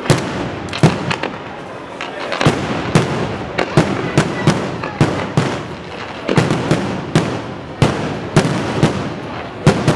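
Fireworks display: aerial shells and comets going off in a rapid series of sharp bangs, about two a second, over a steady rush of noise between them.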